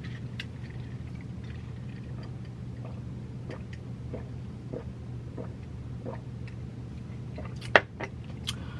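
Close-miked drinking and eating sounds: faint sips and small mouth clicks from drinking iced juice through a straw, over a steady low hum. Near the end, one sharper knock as the glass is set back down on the table.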